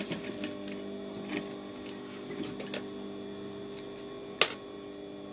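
Industrial sewing machine's motor humming steadily while idle between seams, with light clicks and rustles as fabric is handled at the machine, and one sharp click about four seconds in.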